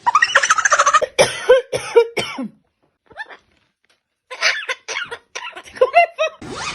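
Pet parrot squawking in two rapid runs of short, harsh calls with a pause between them.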